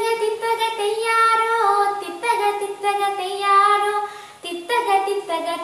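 A child singing a melody solo, without instruments, with a short break between phrases about four and a half seconds in.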